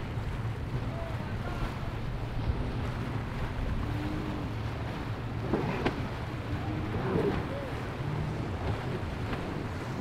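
Sea-Doo personal watercraft engine running at speed, its pitch rising and falling a few times midway, over wind noise on the microphone and the wash of choppy water.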